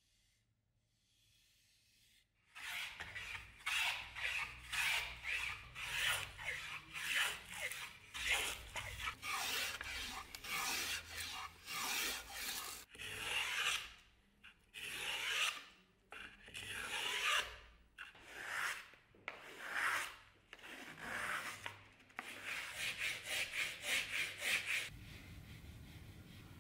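Beech wood handle blank being hand-worked with an abrasive block in repeated back-and-forth scraping strokes. The strokes start a couple of seconds in, about one or two a second, and come faster near the end.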